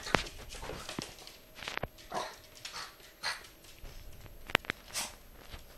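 French bulldog puppy moving about on a wooden floor: scattered sharp clicks and a few brief, faint yips or huffs.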